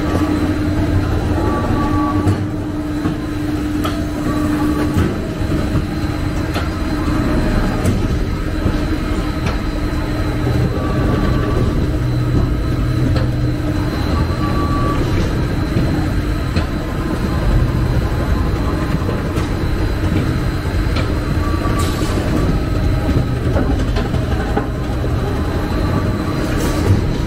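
Industrial plastic shredder with a 37 kW motor running under load while it chews up polypropylene raffia (woven bags and jumbo bags): a steady heavy rumble with a constant hum, and a few brief clicks.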